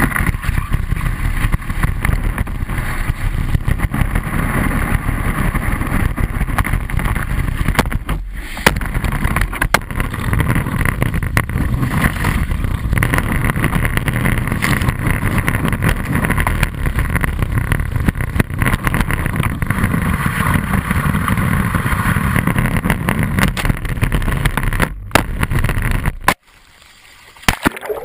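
Water rushing and spraying against a GoPro in its waterproof housing, mounted on a moving wakeboard, heard through the housing with wind on it. A little after 26 seconds the sound cuts off suddenly to a faint, muffled hush as the camera goes under water and sinks.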